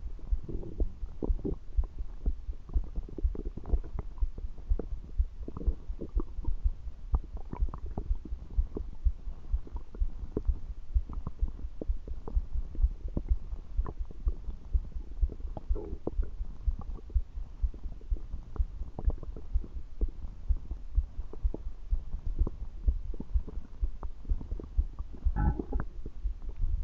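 Stomach gurgling: a close-up, continuous stream of short, irregular low gurgles and squelches, with a louder gurgle near the end.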